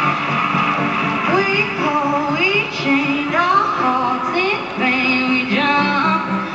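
Music: a woman singing over steady instrumental accompaniment, her voice coming in a little over a second in with sliding, held notes.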